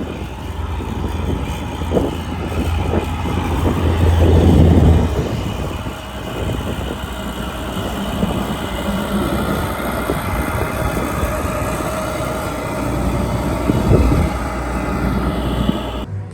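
Engine of heavy farm machinery running steadily under way, swelling louder about four seconds in, with a couple of knocks and rattles; the sound cuts off abruptly near the end.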